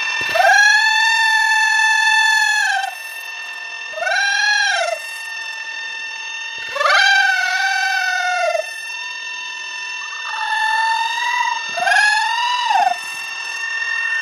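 A woman's high-pitched wordless vocalising: about five long held cries, each swelling up and falling away in pitch, over a faint steady high background tone.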